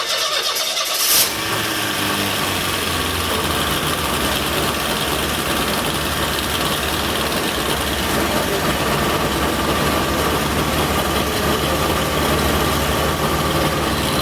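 Freshly rebuilt GM 2.2 inline four-cylinder engine on its first start: it cranks, catches about a second in with a sudden burst, then runs steadily.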